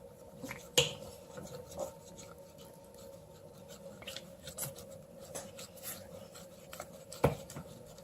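Spoon clicking and scraping against a plastic bowl while body wash is spooned in and stirred into glue, with scattered light taps and two sharper clicks, one about a second in and one near the end.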